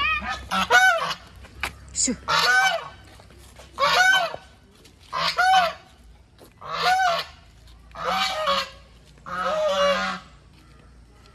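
A goose honking about eight times, one call roughly every second and a half, each rising then falling in pitch.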